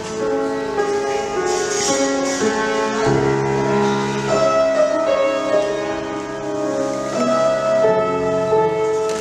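Piano music for ballet barre exercises: held chords with a melody, changing every second or so.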